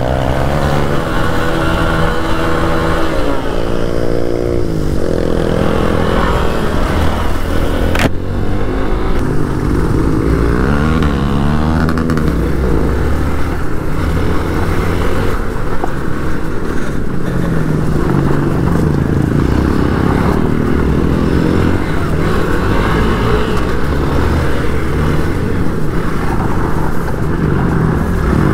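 Single-cylinder Hero XPulse 200 motorcycle engine under way. Its revs rise and fall through the first few seconds, then it runs more steadily, with one sharp knock about eight seconds in.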